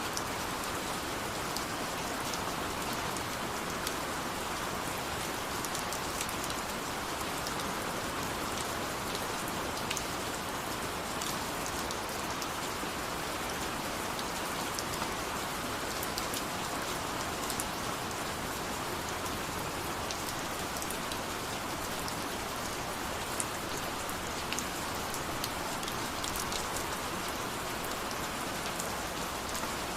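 Steady heavy rain falling on a surface, an even hiss with scattered sharper drop ticks.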